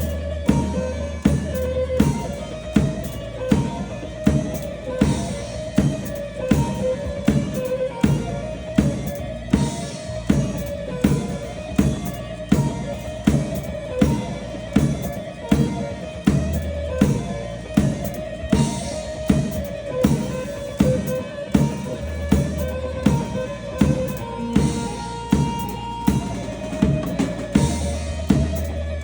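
Instrumental Turkish folk music in the grani style: a melody line carried over a steady, even drumbeat.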